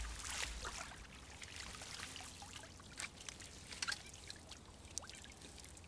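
Water trickling and dripping off a whitebait scoop net as it is drawn out of the river, with scattered small drops splashing; a little louder in the first second.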